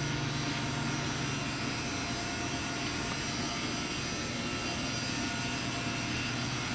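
Automated assembly machine running: a steady, even whooshing noise with a low hum that fades out about a second and a half in.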